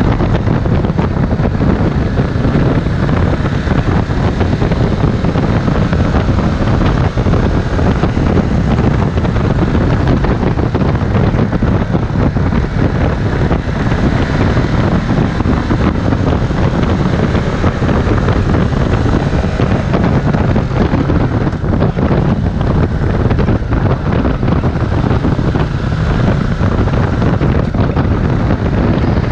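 Ducati Multistrada 1260 S's V-twin engine running steadily while the bike is ridden, mixed with heavy wind noise on the microphone.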